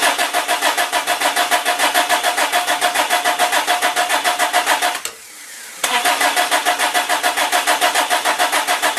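A Toyota 22R-series four-cylinder engine cranking on the starter without catching, with an even pulsing of about six beats a second. The cranking stops about five seconds in and starts again after a short pause. The engine has sat unused for years and is just getting fresh fuel.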